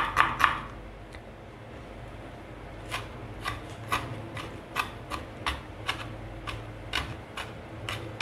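Kitchen knife mincing shallots on a wooden cutting board: quick taps that stop about half a second in, a pause of about two seconds, then slower, uneven taps about two to three a second.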